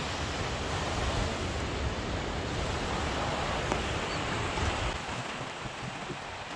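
Surf washing on the shore as a steady rushing noise, with wind rumbling on the microphone that eases off about five seconds in.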